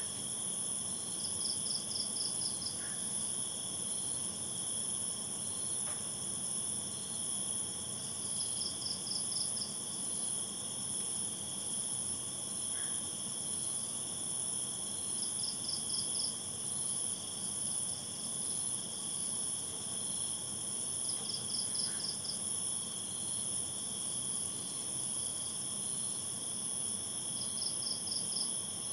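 Nighttime chorus of crickets and other insects: steady high-pitched trilling at several pitches, with a short burst of rapid chirps repeating about every six seconds.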